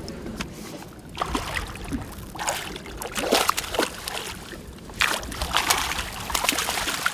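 A hooked bass thrashing at the surface beside the boat, throwing up water in several irregular bursts of splashing as it is netted.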